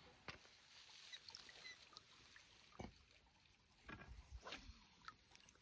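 Near silence, with a few faint small water splashes from a brown trout being released by hand into a shallow stream.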